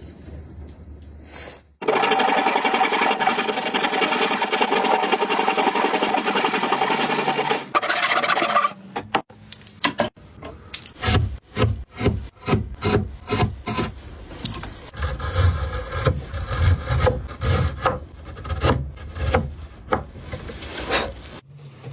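Wood being worked by a tool: a steady rasping scrape for about six seconds, then repeated back-and-forth strokes, a couple a second, each with a low thump.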